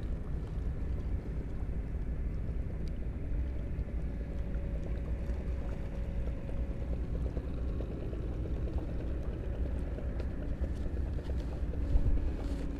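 Steady low rumble of wind on the microphone, with a faint hum that comes and goes.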